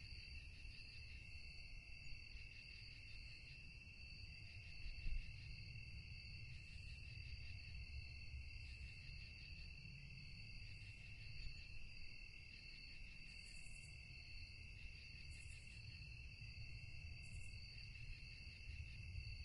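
Crickets chirping in a steady chorus, a continuous high trill at a few overlapping pitches, over a low background rumble. A few short, higher chirps break in near the end.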